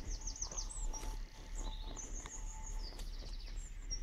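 Small birds singing: quick runs of short high chirps near the start and again about three seconds in, with a longer held high note around the middle. A steady low rumble runs underneath.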